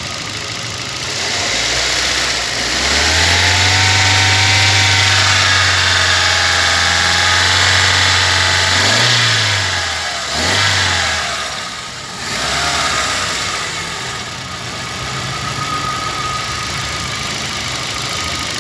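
2003 Chevrolet Corsa's 1.8-litre four-cylinder engine revving up about two seconds in and holding high revs for several seconds, then dropping back with a couple of short blips before settling to a lower steady run. It is being revved to test an intermittent loss of spark on acceleration, which the mechanic puts down to a failing ignition coil.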